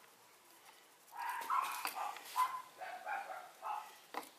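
Short animal calls in an irregular quick run, starting about a second in.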